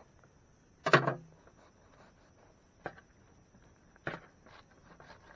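A knife and hands handling a cut sandwich: one loud short knock about a second in, then two sharper clicks a second or so apart, over a faint steady high-pitched drone.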